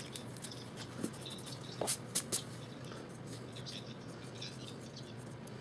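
Pencil scratching lightly on sketchbook paper in short strokes, with a few sharp taps close together about two seconds in.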